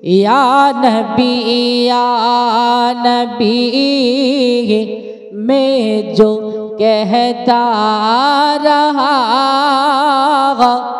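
A man singing the opening of an Urdu naat without accompaniment: long, ornamented held notes with a wavering pitch and slides between them. There is a short break about five seconds in.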